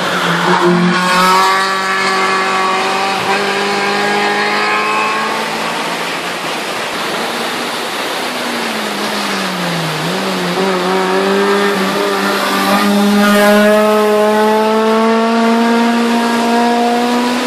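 Hillclimb race car engines accelerating hard up the mountain road, the engine note climbing steadily through the revs. About ten seconds in the pitch dips briefly, then climbs again.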